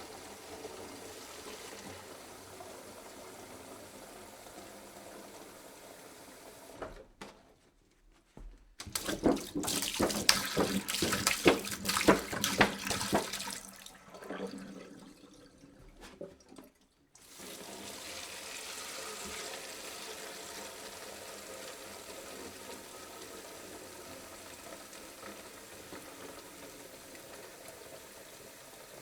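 Water pouring into a jug in a steady stream. It breaks off twice, around 7 s and 14 s in, with a louder, choppy splashing stretch between the breaks, before the steady pour resumes about 17 s in.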